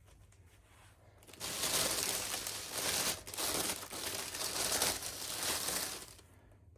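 Plastic packaging crinkling as it is handled and opened by hand, starting about a second and a half in and stopping shortly before the end.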